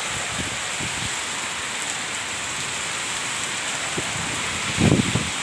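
Storm noise: a steady hiss of heavy rain and strong wind. Gusts buffet the microphone with low rumbles, the loudest about five seconds in.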